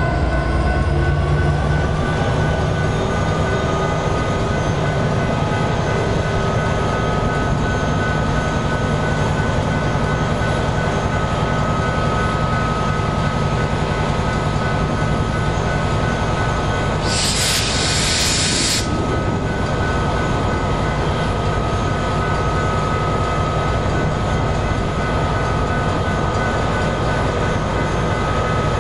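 EMD SD59MX diesel freight locomotives running steadily, with two steady high tones held above the engine sound. A short burst of air hiss about two-thirds of the way through.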